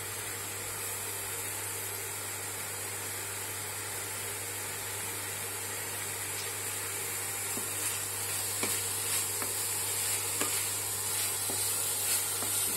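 Chopped onions frying in oil in a kadai, with a steady high sizzle. From about eight seconds in there are light clicks and knocks as green beans are dropped in and stirred with a wooden spatula.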